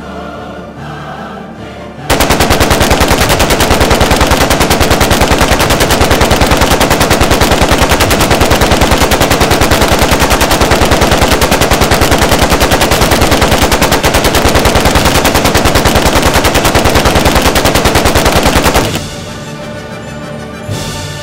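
Machine-gun fire sound effect: a long unbroken stream of rapid, evenly spaced shots, very loud, lasting about seventeen seconds before it cuts off abruptly. Soft background music is heard before it starts and after it stops.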